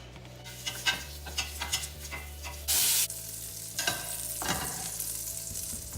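Sausage sizzling as it fries in a pan on high heat, with a utensil clicking and scraping against the pan as it is stirred. A brief loud burst of noise about halfway through, after which the sizzle is fuller.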